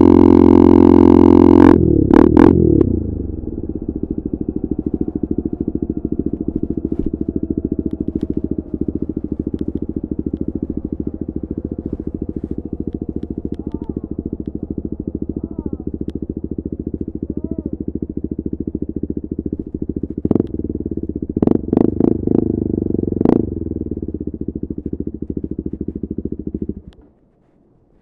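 KTM RC 390's single-cylinder engine through an Akrapovič exhaust, running loud at speed, then falling in revs about two seconds in as the throttle closes. It settles into a steady pulsing idle, with several short throttle blips around twenty to twenty-three seconds in. The sound cuts off suddenly near the end.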